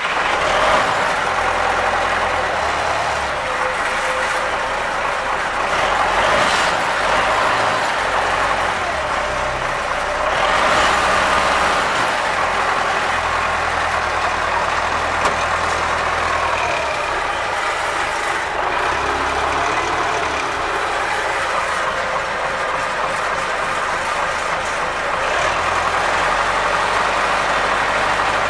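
MTZ-80 tractor's four-cylinder diesel engine running steadily just after being started, heard from inside the cab.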